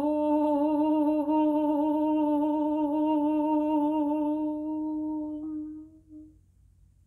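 A woman humming one long held note with a slight waver, fading out about six seconds in.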